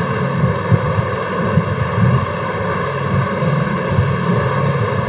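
Steady background hum with hiss and a low rumble that wavers slightly, no speech.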